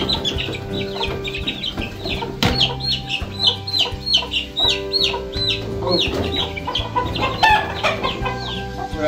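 A brood of young birds peeping loudly and constantly: many short, high, downward-sliding peeps a second, with some lower calls mixed in about six to eight seconds in.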